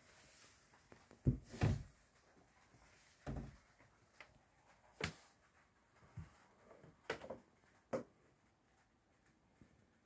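Irregular soft thumps and sharper knocks, about eight in all and the loudest a pair about one and a half seconds in, inside a yacht's small wooden cabin. They die away over the last two seconds.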